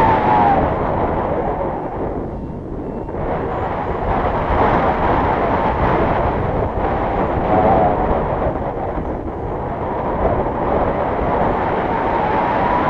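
Wind buffeting a GoPro's microphone in paragliding flight: a loud, steady rushing noise that eases briefly about two seconds in.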